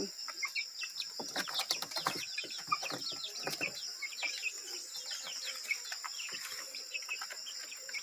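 Young chickens peeping in a rapid run of short, high chirps, over a steady high insect drone.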